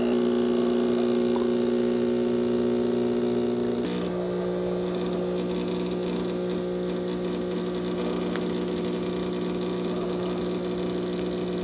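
Gourmia automatic espresso machine's water pump running steadily, pushing plain water through the brew head during the priming cycle before first use. Its hum drops to a lower pitch about four seconds in and cuts off near the end.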